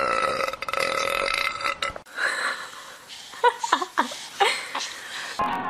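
A child's long deliberate burp, held for about two seconds, followed by a few short voiced sounds; music comes in near the end.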